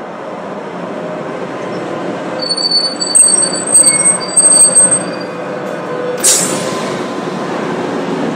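Tram running along its rails, the rumble building steadily, with high-pitched steel wheel squeal from about two and a half seconds in to about five seconds. A brief hiss follows about six seconds in.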